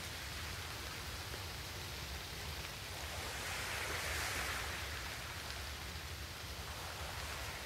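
Steady hiss of background noise, swelling a little for a second or two near the middle.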